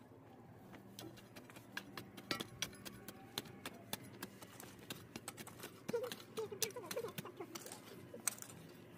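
A run of irregular light clicks and taps, with a few short pitched sounds about six seconds in.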